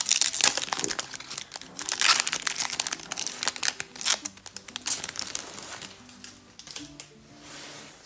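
Foil trading-card booster pack wrapper crinkling and tearing as it is ripped open and peeled off the cards, over background music. The crinkling thins out and stops after about five seconds, leaving the music.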